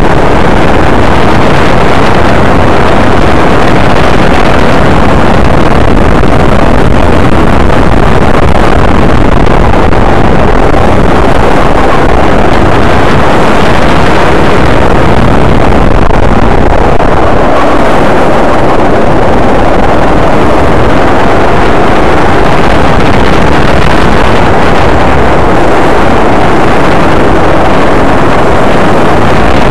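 Go-kart engine running hard as the kart laps the track, heard loudly from an onboard camera with wind on the microphone; the engine note rises and falls with the throttle.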